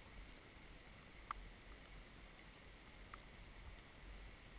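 Near silence with a faint steady hiss, broken by one sharp click about a second in and a fainter click about three seconds in.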